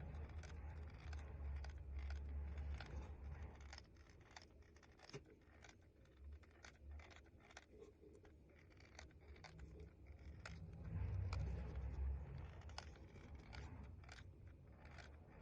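Faint handling noise: many small scattered clicks and scratches, with a low rumble that rises and falls.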